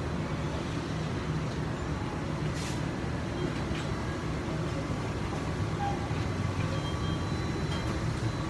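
Steady low rumbling hum of machinery, with a few faint ticks.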